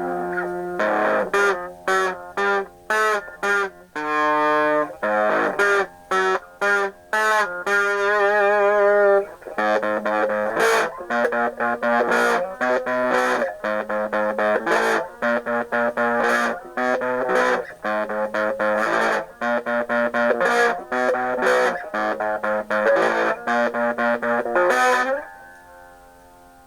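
Distorted electric guitar in an alternate tuning playing a choppy punk/hardcore riff of short chord stabs broken by stops. A wavering, bent note comes about eight seconds in, and near the end a chord is left ringing more softly.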